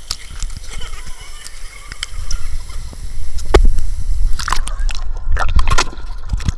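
Stream water splashing and sloshing hard around a handheld camera held at the surface, with irregular sharp splashes and knocks. Near the end the camera dips under the water and the sound turns dull and muffled.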